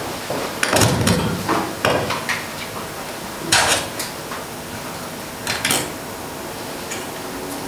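Handling noise from a head-worn microphone being touched and adjusted: a few short scrapes and bumps, the loudest about three and a half seconds in.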